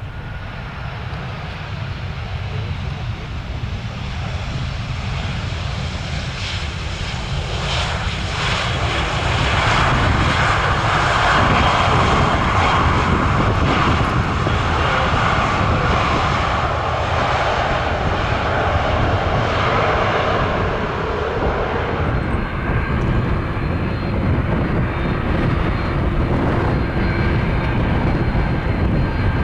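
Tarom Airbus A318's jet engines on its landing roll-out, growing louder as the airliner rolls past and loudest in the middle. About two thirds of the way through, the sound changes abruptly to the steadier, duller engine noise of a KLM Airbus A330-300 on the runway for take-off.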